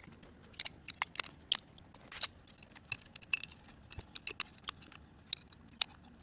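Irregular sharp clicks and taps of small hard parts being handled: the intake manifold's runner flaps being fitted into their slots.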